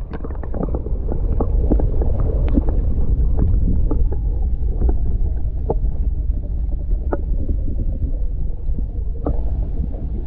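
Muffled underwater ambience picked up by a submerged phone: a steady deep rumble with scattered small clicks and gurgles, and a faint tone slowly falling in pitch through the middle.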